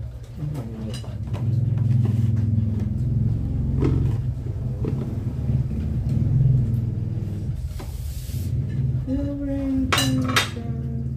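Plates and cutlery clinking at a dinner table: a few sharp clinks, the loudest about ten seconds in, over a low steady rumble.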